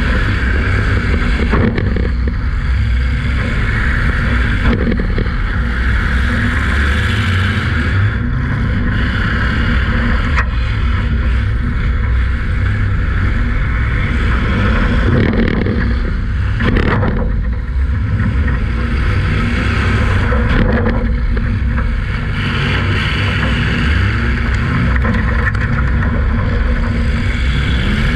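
Demolition derby car's engine running loud and steady, heard from inside the car, with a few sharp knocks.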